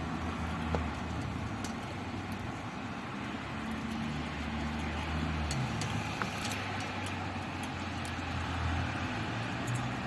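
Rain falling steadily: an even hiss with scattered faint drop ticks, over a low steady hum.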